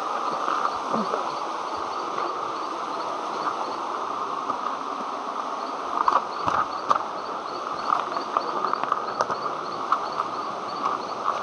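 Waterfall water rushing steadily, with a high chirping repeating several times a second over it that stops and starts. A few sharp clicks come about six to seven seconds in.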